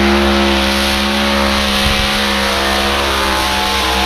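Tractor-pulling machine's engine running loud at steady high revs under load during a pull, the pitch holding nearly level throughout.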